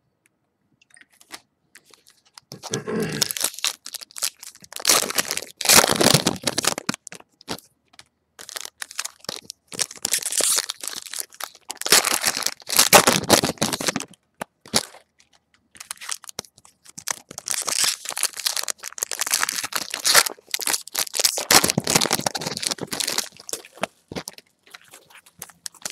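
Topps Strata football card packs being handled and torn open, their wrappers crinkling and crackling in repeated rustling bursts that begin a couple of seconds in.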